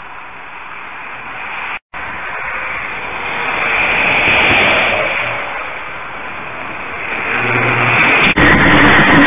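Highway traffic and road noise, swelling about four seconds in and easing off, then turning suddenly louder near the end as a car runs up the dusty median shoulder.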